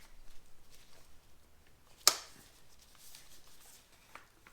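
Faint handling of hand tools and metal engine parts, with one sharp metallic click about two seconds in.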